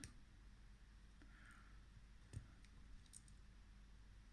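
Near silence with a few faint clicks, the clearest about two and a half seconds in: the small fold-out tools of a Victorinox Midnite Manager pocket knife being handled and opened.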